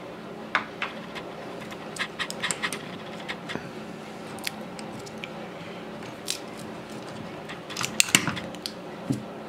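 Scattered light clicks and taps of a pinball machine's hole-kicker coil assembly and its metal parts being handled and taken apart by hand, with a cluster of sharper clicks about eight seconds in. A faint steady hum runs underneath.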